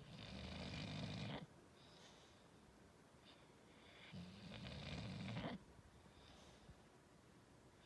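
English bulldog snoring: two long snores, each about a second and a half, coming about four seconds apart, with faint breathing between them.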